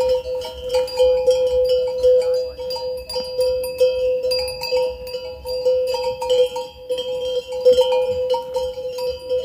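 Bells on grazing horses ringing and jangling without pause: a continuous ringing tone that swells and fades irregularly, with small clinks on top.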